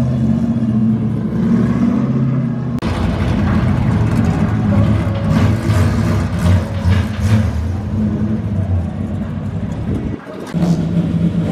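V8 race cars running at low revs while rolling slowly along pit lane. The engine note changes abruptly about three seconds in, and again near the end after a brief dip, as a different car is heard.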